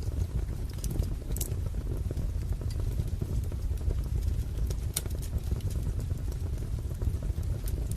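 Wood fire crackling: a steady low rumble with many small crackles and a few sharp pops, the clearest about a second and a half in, near five seconds, and near the end.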